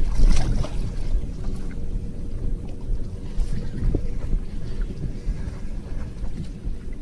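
Wind buffeting the microphone with water noise around a boat on open water: a steady low rumble, with a faint steady hum underneath.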